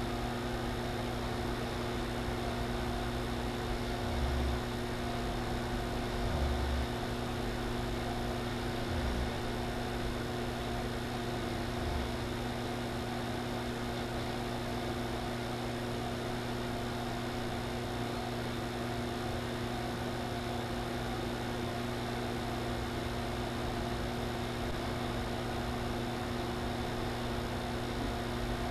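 Steady electrical mains hum over a constant hiss, with a few soft low bumps in the first half.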